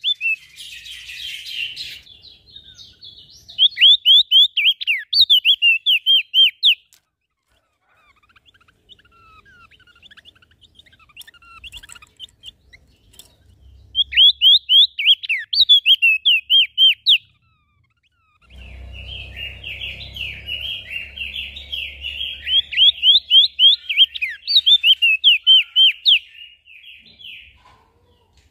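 Small songbirds singing: three phrases, each about three seconds long, of rapid, repeated downward-slurred whistled notes, and a busier, chattering song with a low rumble beneath it through the last third.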